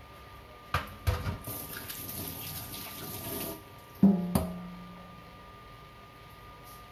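Water running from a kitchen tap for about two and a half seconds, with a couple of clunks as it starts. About four seconds in comes a sharp knock with a short low ringing tone, as of a container being set down.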